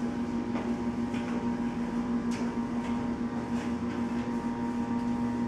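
A steady electrical or mechanical hum at one low pitch, with a few faint ticks and taps over it.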